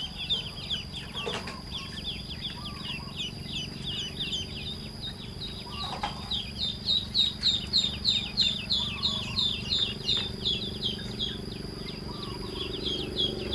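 A brood of newly hatched ducklings peeping: a dense run of short, high, falling peeps, several a second, growing louder about halfway through.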